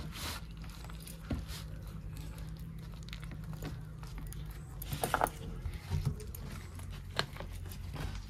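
Soft rustling and light taps of taro leaves being handled as a paste-spread stack is rolled up, over a steady low hum.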